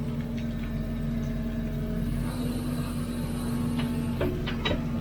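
Hidromek 102B backhoe loader's diesel engine running steadily, with a few short sharp knocks near the end.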